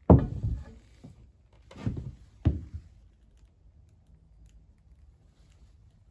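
Three knocks or thumps within the first three seconds, the first and last sharp, then a quiet room.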